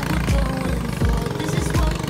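Background music with a steady, thumping beat.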